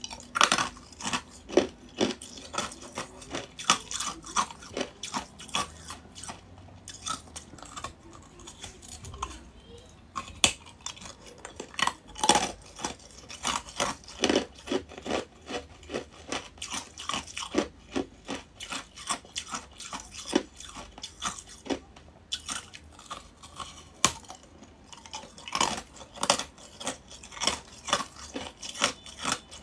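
Close-up crunching of thin shards of balloon-frozen ice being bitten and chewed: runs of sharp, crackling crunches with short pauses between mouthfuls.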